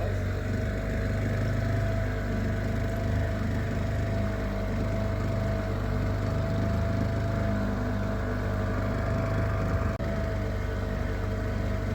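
Small Yamaha 5-horsepower outboard motor running at a steady speed, an even drone with no change in pitch.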